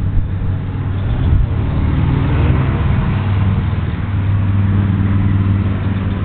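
A steady low mechanical hum, like an engine running, with no change in pitch or rhythm.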